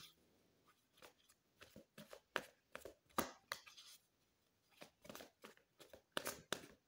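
Tarot deck being shuffled by hand: quiet, irregular soft slaps and flicks of the cards, with a short pause about four seconds in.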